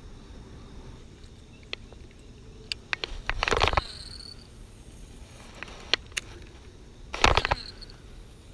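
Handling noise from a fishing rod and reel during a retrieve: scattered light clicks and two short rustling scuffs, about three and a half seconds in and again near the end, over faint outdoor background.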